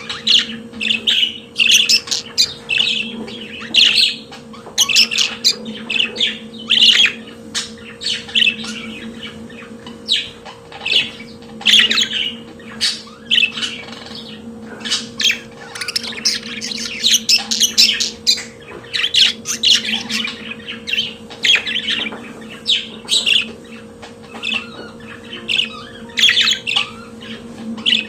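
Budgerigars warbling and chattering, a continuous run of quick chirps and scratchy squawks, over a steady low hum.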